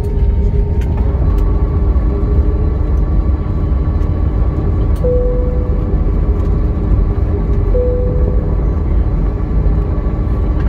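Cabin noise of an Airbus A320-family jet taxiing after landing: a loud steady low rumble with the hum of the engines at taxi power. Two short steady tones sound about five and eight seconds in.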